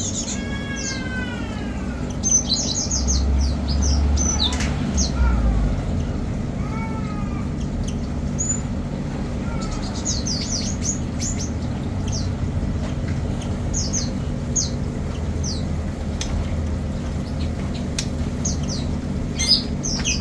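Small birds chirping, with many short high chirps throughout and a few lower, falling calls in the first seconds, over a steady low hum.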